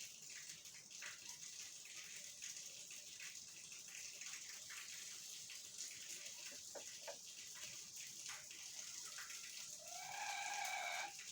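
Parrots making faint scattered clicks and soft chirps, with one pitched call lasting about a second near the end.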